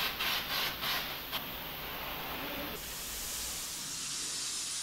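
Air-fed undercoating spray gun hissing as rubberized undercoating is misted on with the air pressure turned down, splattering droplets for a rough, factory-like texture. It goes in short rapid bursts, about four a second, for the first second and a half, then settles into a steady hiss.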